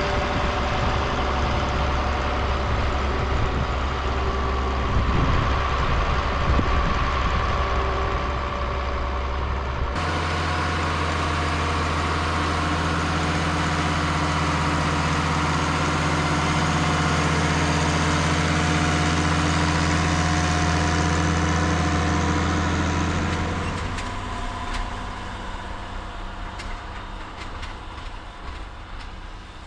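Farm tractor diesel engines running steadily under load. The sound changes abruptly about ten seconds in, to a deeper, steadier hum, and again near 24 seconds, where it turns quieter and thinner.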